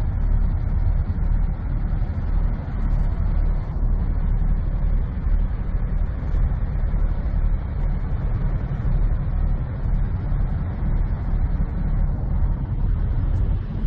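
Heavy diesel semi-truck engine idling: a steady low rumble that does not change.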